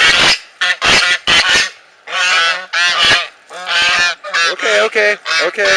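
Geese honking loudly at close range, a rapid series of about a dozen short calls, some overlapping.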